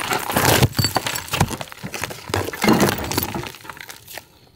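Old asphalt roofing underlayment being ripped off the plywood deck by hand: an irregular run of tearing and cracking, with clinks of loose granules and debris, fading out near the end.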